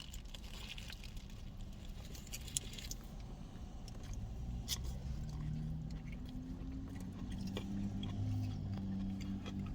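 Burger wrapper paper crinkling and tearing in scattered crackles over the first few seconds, followed by quieter eating sounds over a low hum that swells from about four seconds in.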